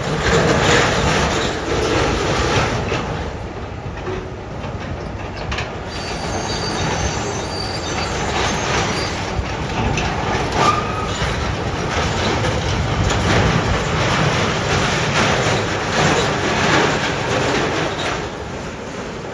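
Train running past on the rails with a steady rumble, and a few brief high wheel squeals partway through.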